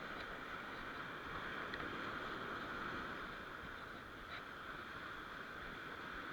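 Steady hiss of surf washing on the shore at high tide.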